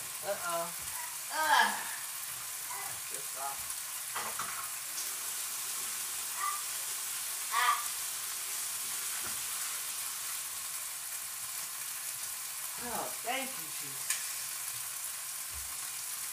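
Shrimp sizzling in a nonstick frying pan: a steady frying hiss. A few brief voice sounds rise over it, the loudest about a second and a half in and again near the eight-second mark.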